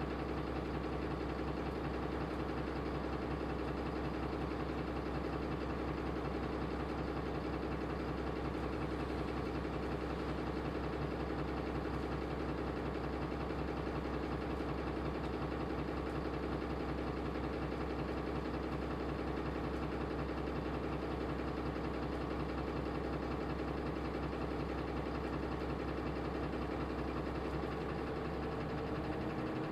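Mitsubishi Fuso Aero Star (QKG-MP38FK) city bus's six-cylinder diesel engine idling steadily, with an even low hum.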